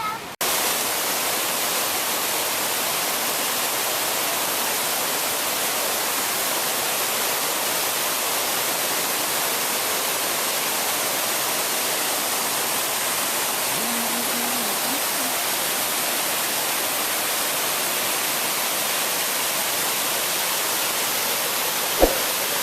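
Waterfall: a steady, even rush of falling water, with one short knock near the end.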